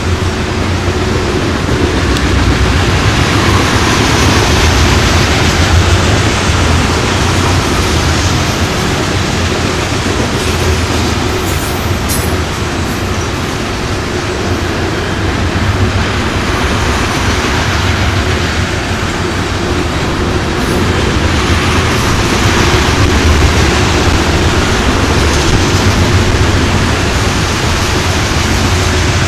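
Freight train of tank cars rolling by: a loud, steady rumble and rattle of steel wheels on the rails, with a low drone underneath.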